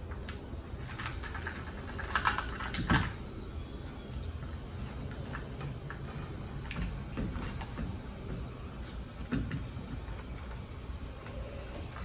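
Light, scattered clicks and taps of a smart lock's interior assembly being handled and fitted against a door while its wire is routed, with a cluster of louder clicks about two to three seconds in.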